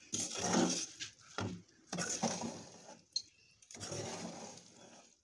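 Metal spoon stirring and scraping vermicelli in a steel pot, in several uneven strokes with a short sharp clink about three seconds in.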